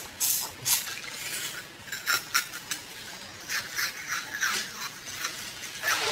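Close-miked eating sounds of a person biting and chewing a jelly-like brown donut-shaped snack: a string of short, irregular mouth smacks and clicks.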